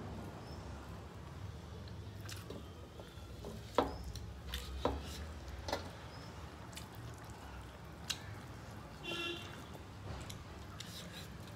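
People eating rice by hand: chewing and wet mouth sounds, and fingers mixing rice on metal plates, with a few sharp clicks scattered through, over a low steady hum.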